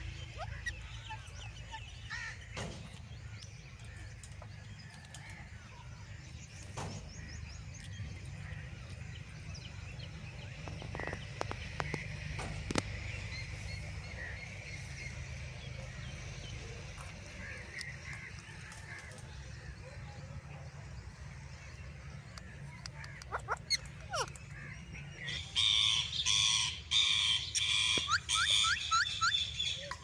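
Rose-ringed parakeets giving scattered soft chirps, then a burst of loud, rapid repeated screeching calls lasting about three seconds near the end.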